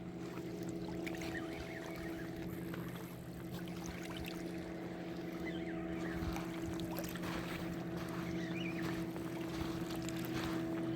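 A boat motor running at a steady, unchanging pitch, a low hum with a few faint small chirps and ticks above it.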